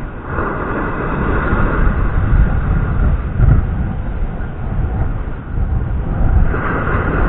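Strong gusting wind, near 30 mph, buffeting the microphone: a loud, heavy rumble that swells and dips.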